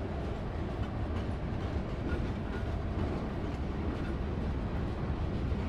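Tank cars of a freight train rolling past, a steady rumble of steel wheels on the rails with a few faint clicks.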